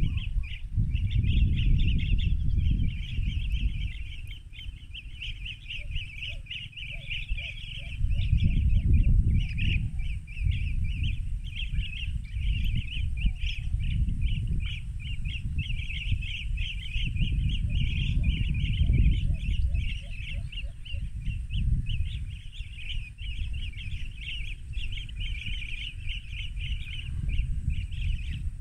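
Rufous-crowned bee-eaters calling: a continuous chorus of high, rolling trilled chatter over a loud low rumble. Twice, a quick run of fainter, lower notes.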